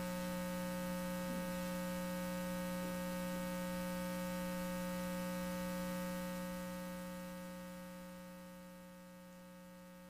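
Steady electrical mains hum and buzz in the sound system, a low drone with a thinner buzz above it. It fades down from about six seconds in and settles quieter.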